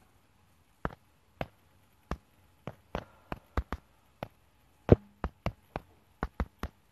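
A run of about fifteen sharp, irregular taps and clicks, the loudest about five seconds in, like fingers or a hard object tapping close to the microphone.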